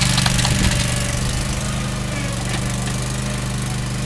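Toro Dingo compact utility loader's engine running steadily, with a few faint knocks.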